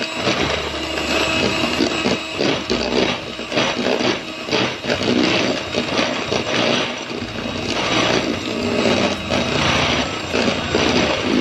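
Electric hand mixer running, its beaters whipping egg whites with sugar in a bowl toward a thick meringue, with irregular clicking of the beaters against the bowl.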